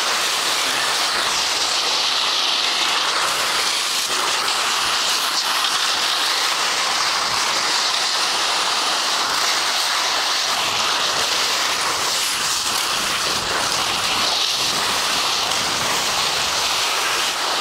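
Steady rushing hiss of skis sliding downhill over snow, mixed with wind rushing over the microphone.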